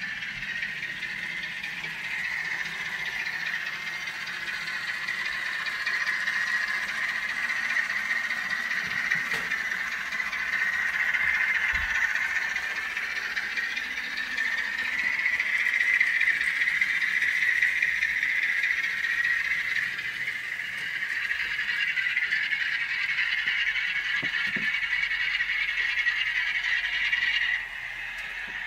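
N gauge Class 46 diesel model's DCC sound decoder playing a Sulzer diesel engine sound through a tiny sugar cube speaker, thin and rattly with almost no bass, mixed with the model running on the track. The level swells gently a couple of times and drops suddenly near the end.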